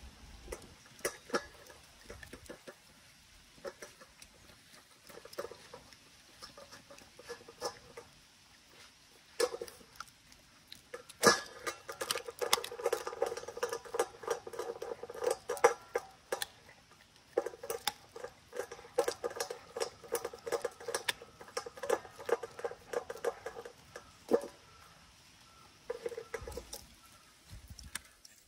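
German Shepherd puppy chewing and licking chicken out of a stainless steel bowl: wet smacking and many sharp clicks of teeth and tongue against the metal. From about a third of the way in to near the end it eats in a fast, busy run, and the bowl rings.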